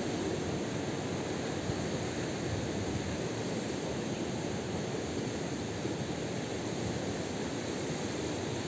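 Steady, even rushing noise with no rhythm or distinct events.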